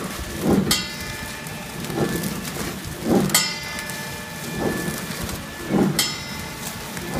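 Vegetable flow pack (horizontal flow wrap) machine running, bagging bunches of greens in film: a steady mechanical rush with a thump about every second and a quarter and a sharp click about every two and a half seconds.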